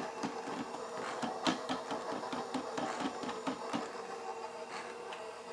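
KitchenAid stand mixer running its sifter attachment: a steady motor hum with a quick, even ticking at about four ticks a second. The ticking stops about four seconds in, leaving only the hum.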